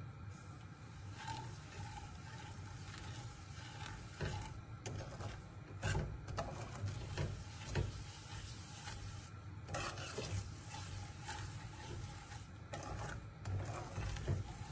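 A metal spoon scraping and tapping against a steel kadhai as semolina is stirred into melted ghee, in irregular strokes.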